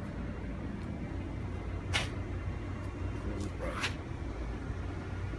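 Steady low hum of an LED headlight bulb's built-in cooling fan running, with no ballast buzz, the sign that the HID kit is gone. Two brief knocks cut in, about two seconds in and again near four seconds.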